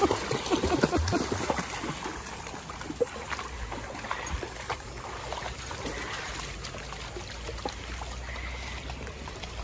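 Dogs wading and splashing through a shallow, slow-running creek, with the creek water running steadily underneath.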